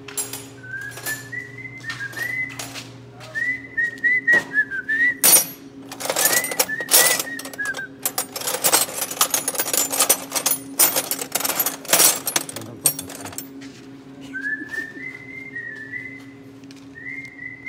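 A person whistling a tune in short phrases. Steel wrenches clatter and clink as a toolbox drawer full of them is rummaged through, loudest from about five to thirteen seconds in. A steady low hum runs underneath.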